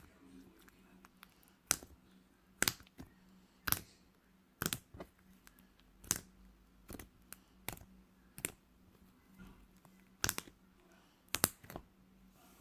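Slime being squeezed and poked, giving sharp popping clicks about once a second, some in quick pairs, as air pockets burst.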